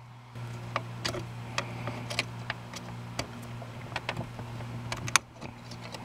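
Small screwdriver clicking and scraping against the brake light switch's retaining clip at the brake pedal as it is pried off, a string of light irregular clicks. A steady low hum runs underneath and stops near the end.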